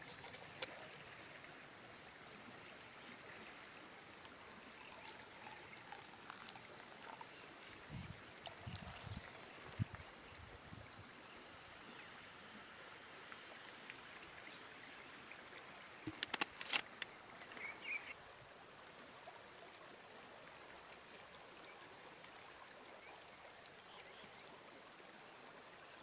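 Faint steady flow of a river, with scattered light knocks and clinks of a plastic water bottle and an enamel mug being handled in two short clusters, about a third of the way in and again past the middle.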